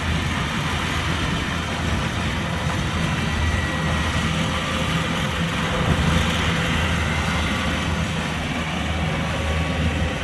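Kubota combine harvester's diesel engine and machinery running steadily, a constant low hum with mechanical noise over it.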